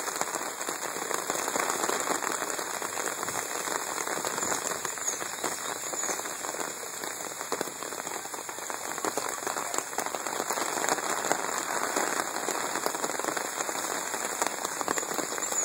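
Light rain pattering steadily, a dense even hiss of small drop ticks with no break.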